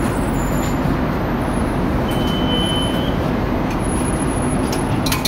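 Steady city street traffic noise, with a single high beep lasting about a second, about two seconds in, and a few sharp clicks near the end.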